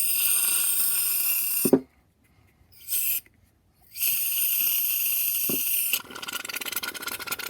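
Aerosol can of shaving cream hissing as foam is sprayed out in bursts: a long one, a short one and another long one, then a quick crackling sputter as the spray falters. The speaker doubts much is left in the can.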